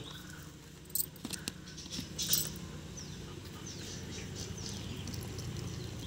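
Plastic water bottle handled with a few clicks and a brief crackle, then water poured from it onto plaster of Paris powder in a plastic cup, a steady trickle building through the second half. A few faint bird chirps come through about halfway.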